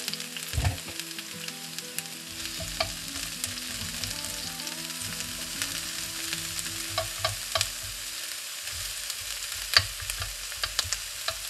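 Julienned vegetables sizzling in oil in a frying pan as they are stir-fried with tongs, the tongs clicking against the pan now and then, most sharply about ten seconds in.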